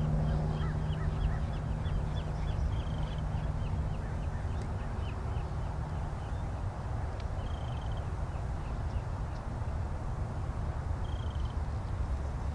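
A bird calling in a quick series of short high notes, about three to four a second, then more sparsely with a few longer held notes. Under it a steady low hum fades out around halfway, over a constant low rumble.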